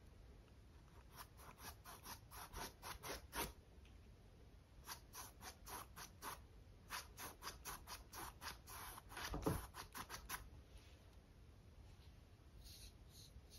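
Paintbrush scratching across stretched canvas with acrylic paint, faint quick strokes several a second in three runs with short pauses between. One louder soft thump near the end of the strokes.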